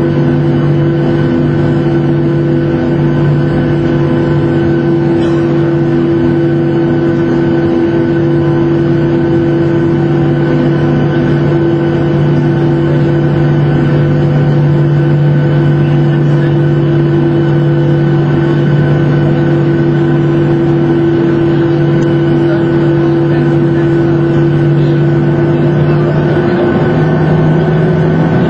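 Boeing 737-800's CFM56 jet engines running at taxi power, heard from inside the cabin as a steady hum with several held tones. Near the end the pitch steps up slightly as the engine note changes.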